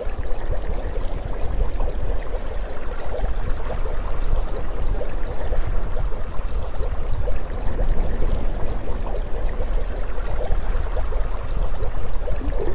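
Underwater ambience: water gurgling and bubbling steadily over a low rumble.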